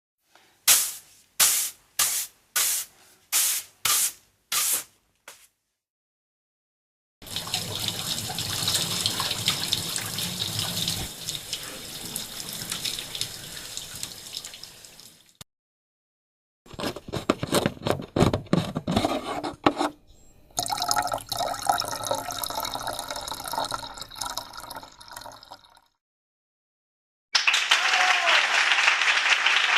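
A sequence of separate household sound clips: about seven sharp knocks in quick even succession, then two long stretches of running water, then applause near the end.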